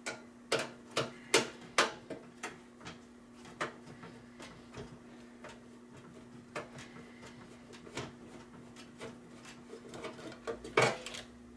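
A screwdriver clicking and tapping on screws and the sheet steel of a computer case's top panel, in irregular sharp ticks that are loudest in the first two seconds and again near the end. A steady low hum runs underneath.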